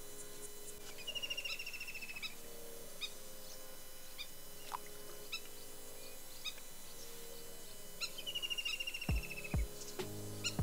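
Small birds singing outdoors: a fast rattling trill about a second in and again near the end, among scattered short chirps. Two dull knocks come shortly before the end.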